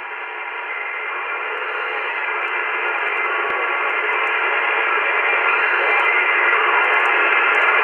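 AOR AR8600 communications receiver hissing with shortwave band noise through its speaker in upper-sideband mode, as it is tuned up from 2 MHz; the hiss gradually gets louder.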